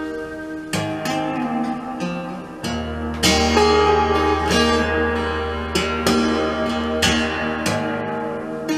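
Solo steel-string acoustic guitar played fingerstyle: a plucked melody over ringing chords, with a deep bass note held under it for several seconds in the middle.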